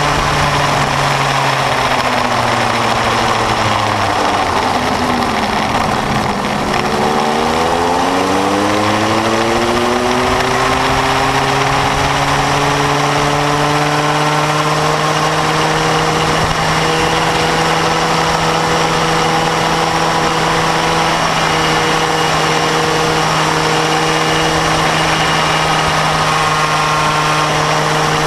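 Bambino go-kart's small two-stroke engine running at speed. About five seconds in its pitch drops as the kart slows, then it climbs again as the kart accelerates away and holds steady.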